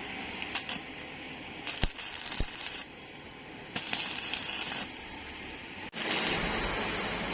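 Stick arc welding on iron: a crackling hiss in several short runs that start and stop abruptly, with a couple of sharp metal knocks about two seconds in.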